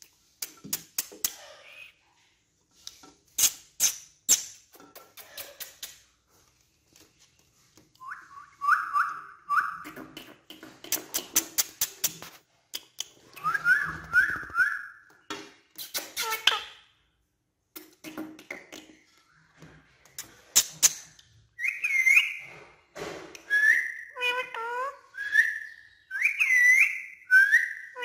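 Indian ringneck parrot whistling and chirping in short repeated notes that slide up and down, with sharp clicks between them. The whistles come thicker near the end.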